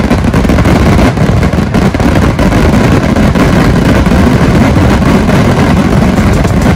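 Fireworks barrage: many bursts going off in quick succession so that the bangs run together into one loud, continuous rumble with crackling on top.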